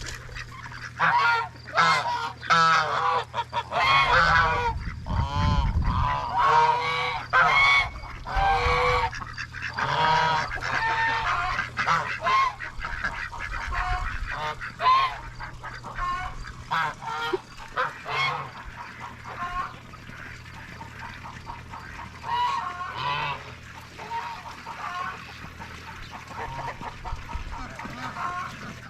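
Geese honking over and over, the calls coming thick and fast in the first ten seconds and then thinning out.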